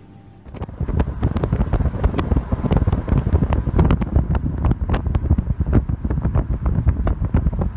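Heavy wind buffeting and crackling on the microphone of a camera filming from a moving car, with road rumble underneath; it starts suddenly about half a second in.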